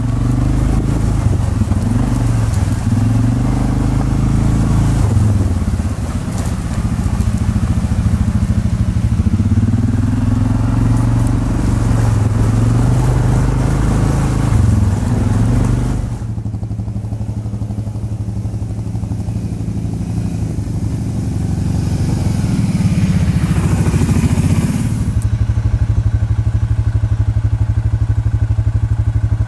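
ATV engines running on a muddy trail, the pitch rising and falling with the throttle, with crackle and clatter from the ride. The sound changes abruptly about halfway through to a quieter, steadier engine, swells again, and changes abruptly once more near the end.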